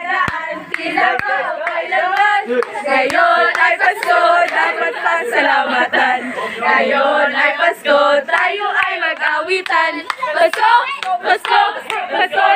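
A small group of women singing together, with hand claps over the singing.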